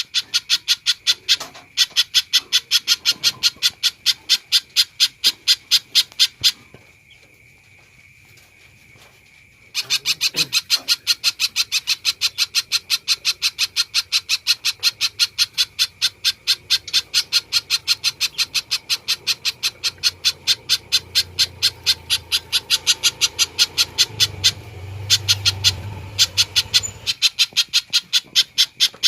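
A spiderhunter calling loudly in a rapid, even series of sharp high notes at about four a second. It breaks off for about three seconds, about six seconds in, then resumes.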